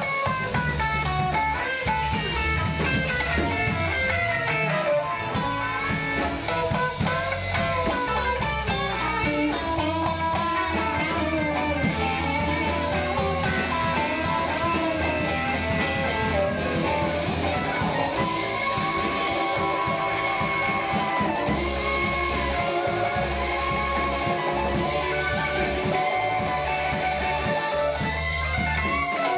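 Live band music led by electric guitars over drums and a steady low end, in a blues style.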